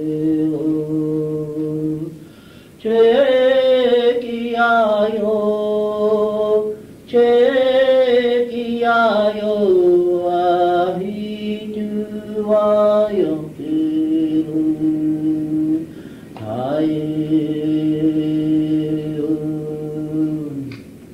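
A man's voice chanting unaccompanied, in long held notes with phrases that slide down in pitch, separated by short pauses for breath.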